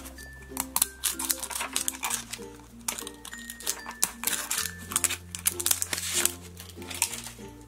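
Plastic crinkling and small clicks as the printed shrink-wrap label is peeled off a plastic Mashems toy capsule, over background music.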